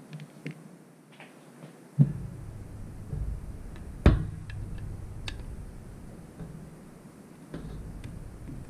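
Handling noise of a Harley-Davidson Sportster CV carburetor and a screwdriver: light clicks, a sharp knock about two seconds in, then a low rumble of hands on the carburetor body, with the loudest sharp click about four seconds in as the screwdriver goes to the top cover screws.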